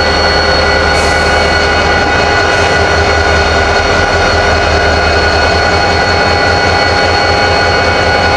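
Union Pacific SD40N diesel-electric locomotive, a 16-cylinder EMD 645 two-stroke, idling at close range. It makes a loud, steady engine drone with several steady high tones over it.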